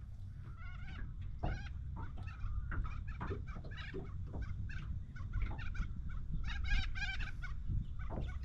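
Birds calling in a run of short, repeated clucking calls, with a steady low rumble underneath.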